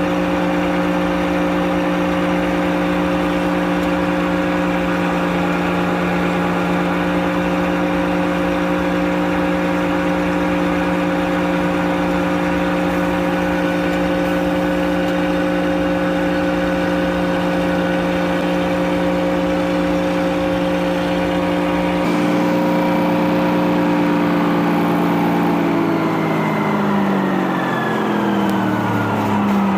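Frick sawmill running at a steady speed with a constant hum. About 22 s in the deepest part of the sound drops out. From about 25 s its pitch falls steadily as the mill winds down.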